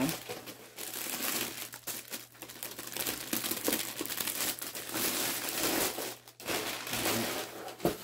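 Clear plastic bag and crumpled paper packing crinkling and rustling as hands pull a boxed item out of a shipping box, with a brief lull about six seconds in.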